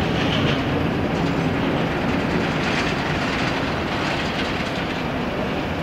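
Jet noise from a Boeing 737-300's CFM56 engines as it passes overhead: a steady, broad rumble that slowly fades.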